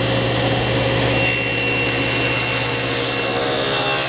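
Table saw running with its blade lowered for a shallow cut; about a second in, a higher whine joins for roughly three seconds as the blade cuts into a small piece of wood fed across it.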